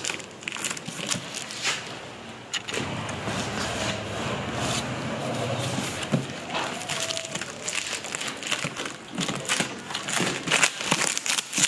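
Hands handling a large cardboard box and picking at its packing tape: irregular crackles, scrapes and taps of cardboard and tape.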